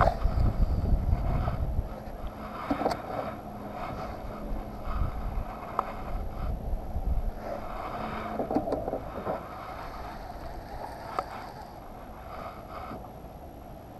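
Wind rumbling on the microphone, strongest for the first two seconds, with scattered light clicks and knocks from handling a baitcasting rod and reel and a faint steady hum in the middle.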